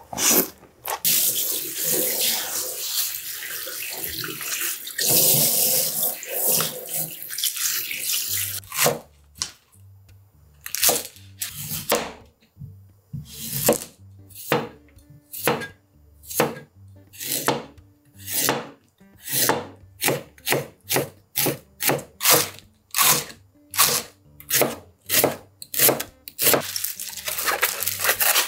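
Tap water running into a sink for several seconds. Then a kitchen knife slices a white radish into rounds on a plastic cutting board: a long run of sharp cutting strokes, about one to two a second.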